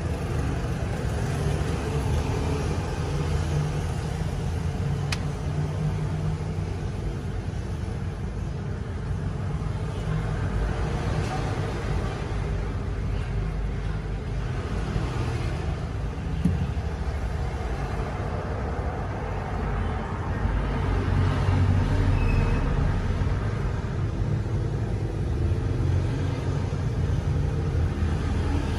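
A steady low rumble, swelling a little about twenty seconds in.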